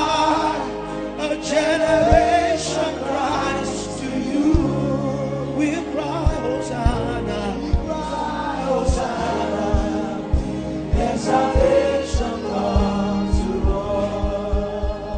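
Gospel worship music: voices singing together as a choir over sustained instrumental chords, with drum hits throughout.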